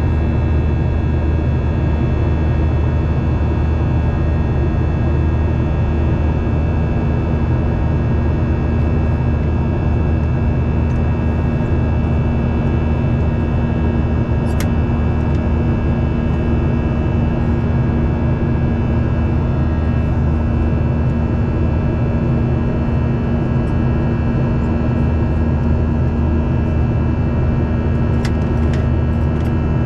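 Steady jet engine drone inside a Boeing 737-800 cabin: the CFM56-7B turbofans produce a constant low rumble with several steady tones over it. A few light clicks sound near the middle and toward the end.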